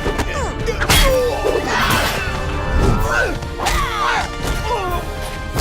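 Action-cartoon fight soundtrack: dramatic background score with hit effects, a sharp whack about a second in, then more whacks and crashes, with sliding, gliding cries laid over the music.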